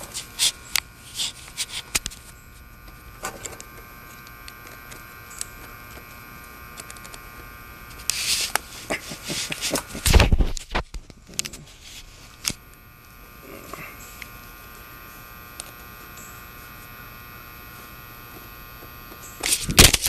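Clicks and rustles of hands working wire connectors and handling the camera, over a steady buzz, with a heavy thump about halfway through.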